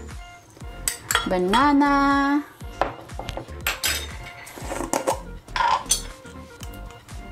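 Frozen banana chunks dropping into a glass blender jar onto frozen strawberries: a series of separate knocks and clinks against the glass, with a bowl and spoon clinking.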